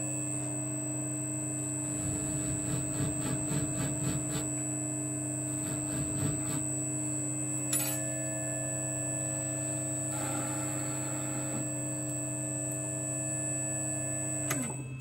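Small clockmaker's lathe (Pultra 1750) running with a steady motor hum and high whine, with light cutting and scraping noise on and off as a part is worked. Near the end the motor is switched off and its hum falls in pitch as it spins down.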